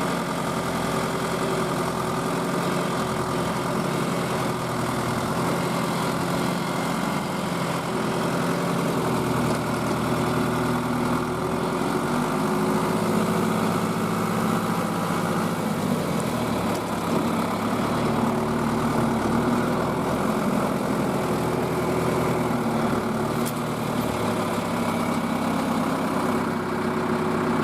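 A vehicle engine running steadily, its pitch shifting up and down a few times.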